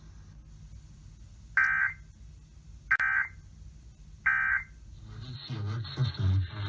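Emergency Alert System End-of-Message (EOM) data bursts: three short, identical electronic screeches about 1.3 seconds apart, which signal that the alert has ended. A voice starts near the end.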